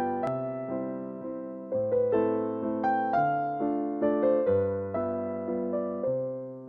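Background music played on a keyboard: notes and chords, each struck and then fading.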